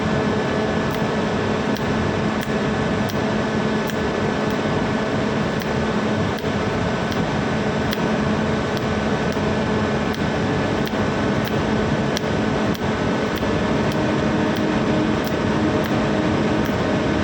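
Steady mechanical hum and hiss, holding a few even tones without a break.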